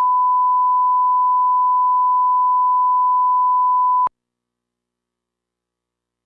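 Steady 1 kHz line-up test tone played with the colour bars at the head of a broadcast program master tape, a single pure beep that cuts off with a click about four seconds in.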